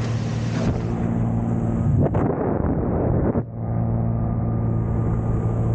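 Single-engine light aircraft's piston engine and propeller droning steadily, heard inside the cabin in flight. A rougher, noisier stretch about two seconds in ends with a brief drop in level about three and a half seconds in.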